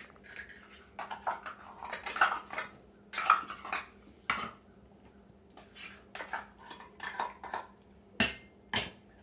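A spoon scraping and clinking against a small container and plate as wet cat food is spooned out: a run of irregular short scrapes and taps, with one sharper clink near the end.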